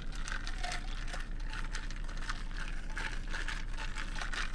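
Wide plastic boba straw pushed up and down and stirred in a sealed bubble tea cup, scraping and clicking against the plastic lid and cup in many short irregular scratches.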